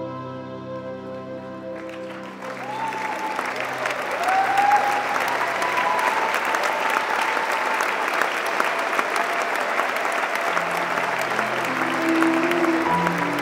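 Waltz music ends about two seconds in, and the audience breaks into sustained applause with a few cheers. Quiet music starts again near the end.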